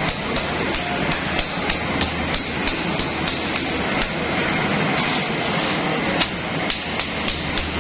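Rewri (sesame candy) forming and cutting machine running, with a regular clacking of about three knocks a second over a steady low machine hum.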